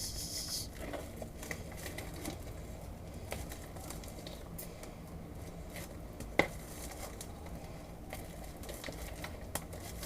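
Sticky homemade slime being stirred: soft crackles and small scattered clicks, with one sharper click about six seconds in.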